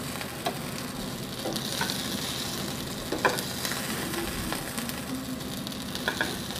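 Breadcrumb-coated vegetable cutlets shallow-frying in oil in a pan, with a steady sizzle. A few light clicks of a wooden spatula and a steel slotted spoon against the pan break through it.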